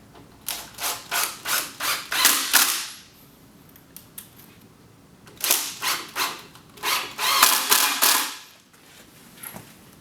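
Screws being driven into the wooden shelf unit: two runs of short, quickly repeated mechanical bursts, each lasting about three seconds and ending in a longer, louder stretch as the screw seats, with a pause between them.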